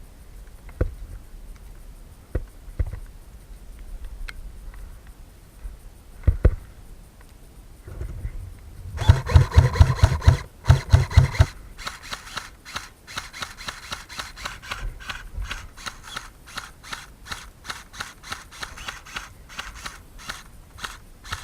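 Footsteps and the rustle of clothing and gear on a moving player. A few scattered knocks come first. About nine seconds in there is a quick run of heavy thumping steps, which settles into steady, evenly spaced footfalls.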